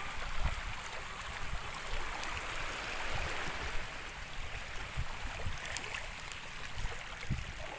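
Shallow seawater sloshing and splashing around a wader's legs and hands as he gathers seaweed from the bottom, with water running off a lifted handful. A steady watery hiss with a few soft knocks.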